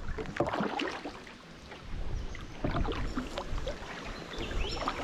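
Carbon-fibre Werner Camano double-bladed paddle dipping into and pulling through calm floodwater in steady alternating strokes, with irregular small splashes and drips. A low wind rumble sits on the microphone.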